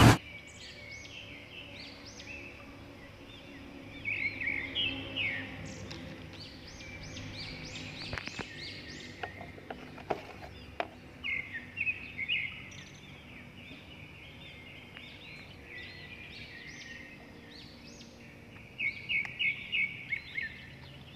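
Birds chirping and calling repeatedly, with quick runs of chirps that come and go. A few light clicks come partway through.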